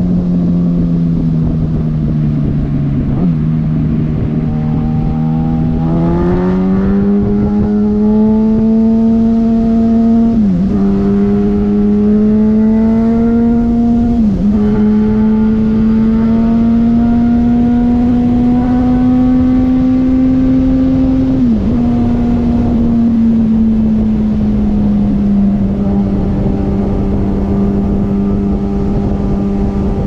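2005 Yamaha YZF-R1's inline-four engine through straight-piped exhaust, ridden at freeway speed. Its drone climbs in pitch about six seconds in and dips sharply three times for an instant, then eases back down to a steady cruise near the end.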